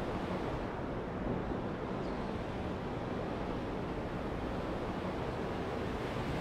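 Ocean surf washing on a sandy beach: a steady, even rush of waves.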